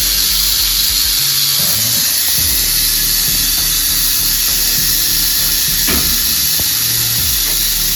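Rattlesnake rattling: a continuous, loud, high buzzing hiss that holds steady throughout.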